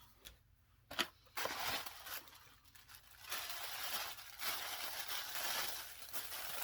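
Packing material being handled and pulled open: crinkling and rustling, with a single click about a second in.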